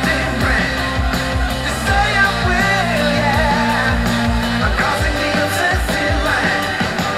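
A song with a singer and a band and a steady beat, played back through a Pioneer SBX101 soundbar for a listening test.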